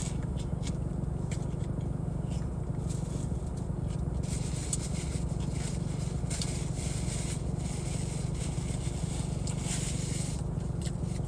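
Steady low rumble of an idling car with its air conditioning running. From about four seconds in, close crackling and scraping from eating, with scattered clicks before it.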